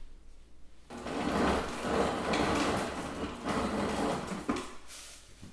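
Refrigerator door ice dispenser running and pouring crushed ice that clatters into a glass measuring cup. It starts about a second in and stops near the end.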